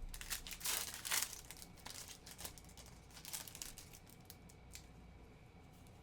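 Trading cards being handled and flipped through: crinkling and sliding rustles, loudest in the first second and a half, with a few more about three and a half seconds in, then softer.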